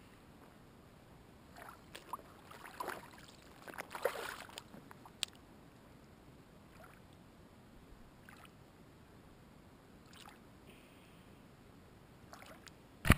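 Splashing in shallow lake water as a trout is handled and released by hand, a cluster of irregular splashes a couple of seconds in, then only a few faint ones. A single sharp knock near the end is the loudest sound.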